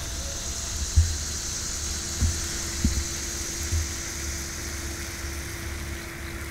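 Water jets of an Irrigreen digital sprinkler head spraying onto a lawn, a steady hiss, over a low rumble with a few soft thumps and a faint steady hum through the middle.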